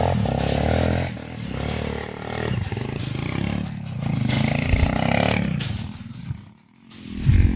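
Dirt bike engine revving in surges as it claws up a steep, rutted trail, dropping away briefly near the end before a short loud burst.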